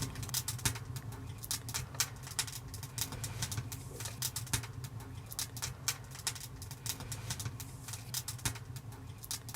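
Firewood crackling with many irregular sharp clicks inside a Bereg 'Kamin' wood-burning tent stove that has just been lit and is still catching, over a steady low hum.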